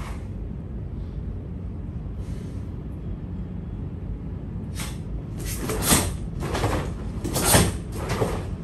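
A run of short, sharp swishes and snaps from a karate gi as fast kata techniques and a turn are performed, starting about halfway, with the two loudest near the end, over a steady low background hum.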